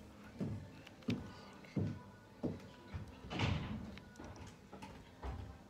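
A series of soft knocks and bumps, about six of them, most a little under a second apart, the loudest about three and a half seconds in.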